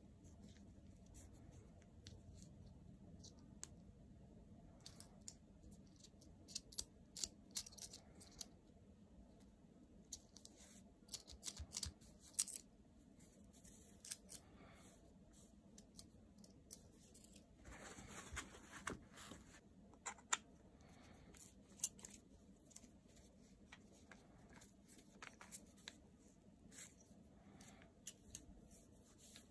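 Small sharp clicks and ticks, scattered irregularly, from hands handling and threading together the parts of a smartphone grip: a wooden handle, its metal screw and a black mount arm. A brief scraping rustle comes about two-thirds of the way through.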